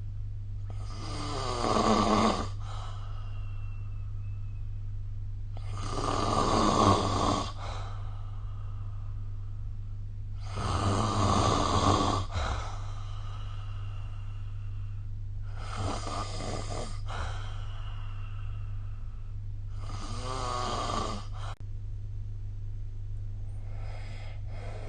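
A person snoring in slow, regular breaths, one snore about every five seconds, the later ones fainter. A steady low hum sits underneath.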